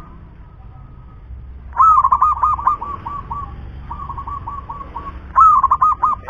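Zebra dove (perkutut) cooing: two loud phrases of quick rolling coos, about two seconds in and again near the end, with softer runs of repeated coo notes trailing off between them.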